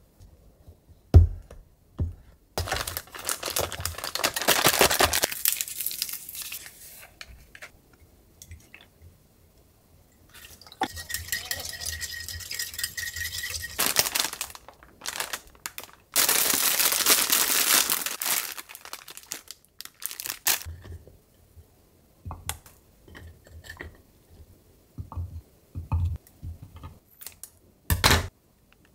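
Plastic packaging crinkling and tearing in three long rustling stretches as a pack of ladyfinger biscuits is handled and opened, with light clicks and taps of things set on the counter between them. A short sharp snip near the end, as scissors cut the tip of a plastic piping bag.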